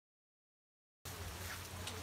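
Dead silence for about the first second, then steady outdoor background noise with light rain patter comes in abruptly.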